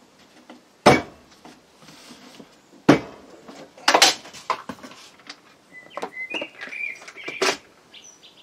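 Hinged wooden lid of a box made from sauna panel boards being closed and pressed down onto dowel centre pins so that they mark the lid, then lifted open. Two sharp wooden knocks about one and three seconds in, a cluster of knocks around four seconds, then lighter clicks and rattles with brief high squeaks near the end.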